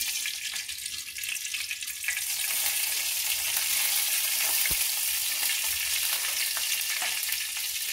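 Fenugreek seeds sizzling in hot oil in a kadai: a steady frying hiss that grows louder about two seconds in and then holds.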